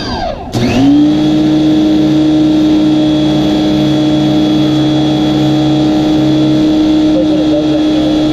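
Electric pressure washer's motor and pump starting up about half a second in, quickly spinning up in pitch and then running steadily with a loud hum and a high whine.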